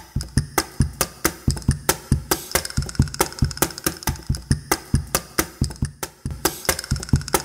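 Solo wooden hand percussion, in the manner of a cajón, beating a quick, steady marinera rhythm of deep thumps and sharp knocks, about four strokes a second. It starts abruptly out of silence.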